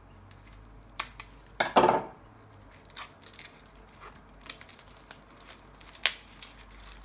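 Knife cutting and plastic shrink-wrap being peeled off a small cardboard card box: a few sharp clicks and crinkles, with one louder short tearing rustle about two seconds in.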